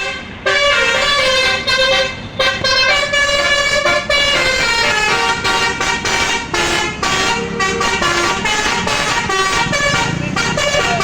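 Bus 'telolet' basuri musical air horn playing a tune: a quick run of loud pitched horn notes that change every half second or so, starting about half a second in.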